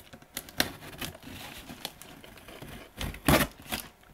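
Packing tape being picked at and peeled off a cardboard shipping box, with scattered crackles and crinkling, and a louder burst of tearing and handling noise about three seconds in.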